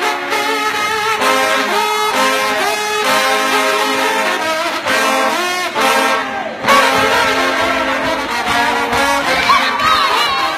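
Trombone playing a fast run of short notes, then, after a brief dip about two-thirds in, notes that slide up and down in pitch.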